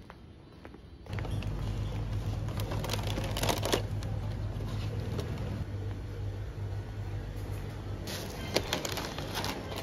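Plastic snack packets and a bottle rustling and crinkling as they are handled and dropped into a plastic shopping basket, loudest about three and a half seconds in and again near the end, over a steady low hum of shop ambience that starts about a second in.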